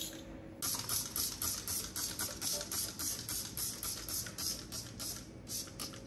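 Trigger spray bottle of foaming kitchen cleaner being pumped fast, each pull of the trigger giving a short hissing squirt, several a second. There is a brief pause near the end.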